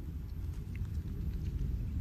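Steady low rumble, with a few faint ticks about midway.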